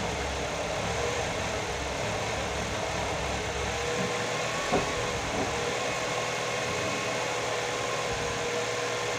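Nissan GA16DE 1.6-litre four-cylinder petrol engine idling steadily on its first run after a repair, with one short click about halfway through.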